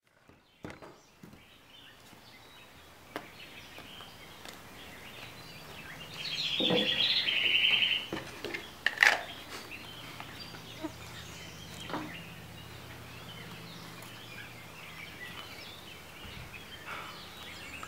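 Outdoor ambience with birds chirping, including a rapid high trill about six seconds in, and a few short sharp taps.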